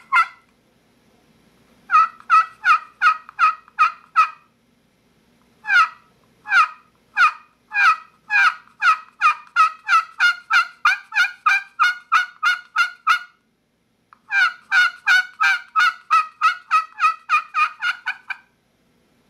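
Titanium pot-style turkey call played with a striker, giving three runs of rhythmic turkey yelps separated by short pauses; the middle, longest run speeds up as it goes.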